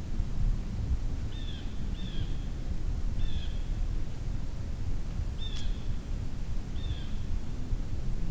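A bird giving five short, sharp calls, one to two seconds apart, over a steady low rumble of background noise.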